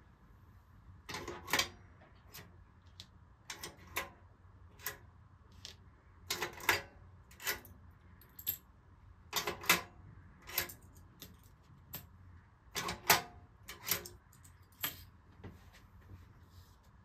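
Vintage spring-loaded metal coin changer with six coin tubes, its levers pressed one after another. Each press gives a sharp metallic clack as a coin is pushed out and clinks onto the table. There are about a dozen clacks, many in quick pairs or small clusters.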